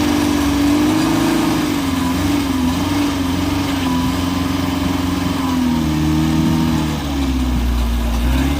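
Off-road 4x4's engine running, its pitch wavering up and down as the throttle is worked, with a deeper low rumble coming in about seven seconds in.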